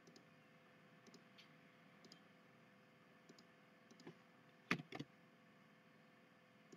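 Faint computer mouse clicks, scattered about once a second, with two louder clicks close together about two-thirds of the way in.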